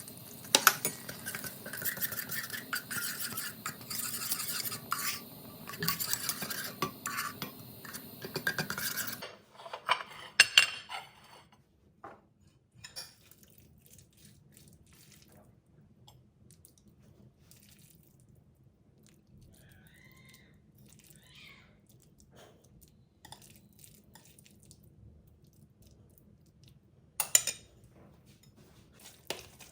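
Kitchen utensils and dishes clattering and scraping for about nine seconds, then only a few scattered clinks and knocks.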